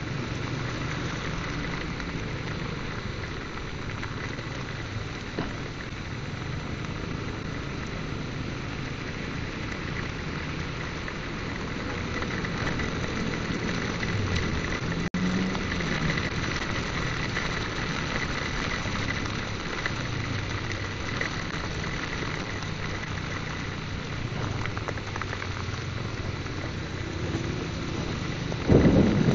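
Heavy rain hissing steadily, with a motorcycle engine running underneath at varying pitch while riding.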